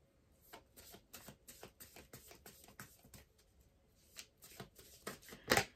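A tarot deck being shuffled by hand: a quick run of soft card flicks starting about half a second in, with the loudest snap near the end.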